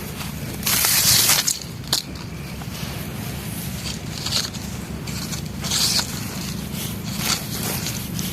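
Dry, brittle material being crunched and crumbled close to the microphone in several separate crunches, the longest and loudest about a second in. A steady low hum runs underneath.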